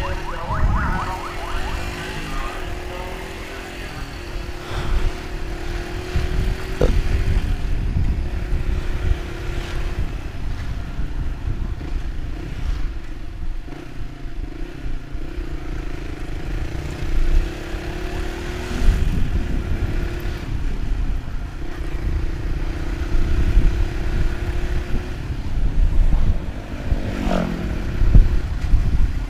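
Motorcycle engine running on the move, its pitch rising and falling slowly with the throttle, over a loud, uneven low rumble. Near the end a brief glide in pitch stands out.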